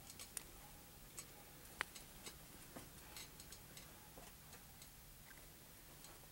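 Near silence with scattered faint, irregular small clicks and ticks; one sharper click comes about two seconds in.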